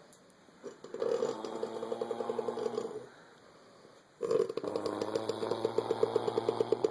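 Snoring in two long breaths, one about a second in and one past four seconds. Each is a fast rattling buzz like a dirt bike, and the second has a low hum under it: two sounds at once.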